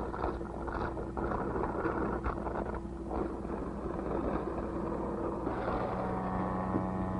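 Electric motor and gear drive of a belt-driven shear-flow apparatus running, a steady mechanical hum with an uneven rumble. About five and a half seconds in, a higher whine joins it.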